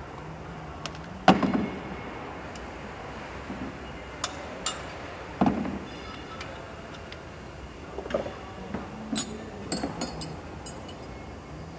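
Scattered metal clinks and knocks of hand tools working on an industrial engine being assembled. Two louder knocks come about a second in and about five seconds in, and a quick run of clinks follows near the end, over steady background noise with a faint low hum.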